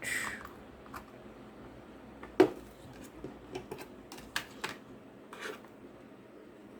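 Small plastic clicks and rustles as a wireless charger and its USB cable are handled and plugged in: one sharp click about two and a half seconds in, then a few lighter clicks.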